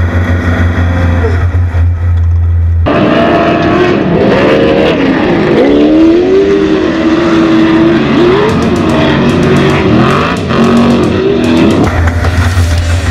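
Race vehicle engine revving up and down with its pitch rising and falling, over background rock music. The engine cuts in abruptly about three seconds in, and the music is heard alone again near the end.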